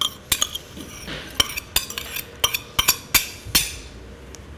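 Metal spoon clinking and scraping against a small stainless-steel bowl as shallot is scraped out into a glass mixing bowl: an irregular series of about a dozen light clinks.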